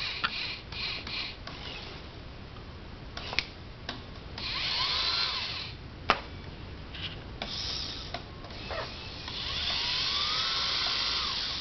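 Small electric motors of a model gantry crane whirring in several spurts, each with a whine that rises and then falls, the longest spurt near the end. A few sharp clicks fall between the spurts.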